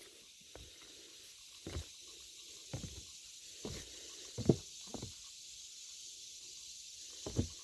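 Footsteps on a woodland trail, a soft crunch roughly once a second with one heavier step about halfway through, over a steady faint high hiss.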